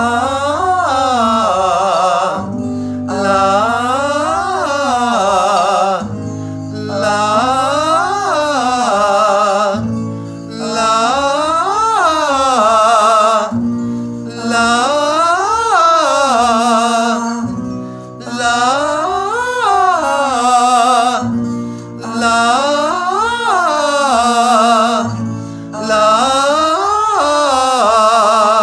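A man's voice singing "la" triad exercises, each one arching up and back down with vibrato, over held accompaniment chords. The pattern repeats about every four seconds.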